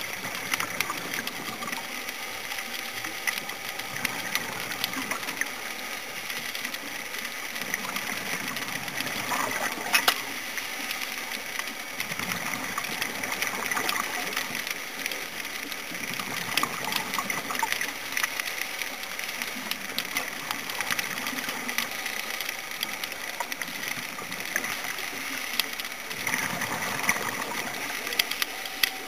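Underwater sound on a scuba dive: a steady hiss full of small clicks and crackles, swelling and easing every five or six seconds with a diver's regulator breathing and venting bubbles. A sharper click about ten seconds in.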